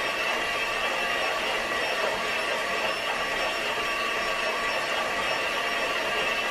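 Electric hand mixer running steadily, its beaters whipping potatoes into mashed potatoes in a pot, with a steady motor whine.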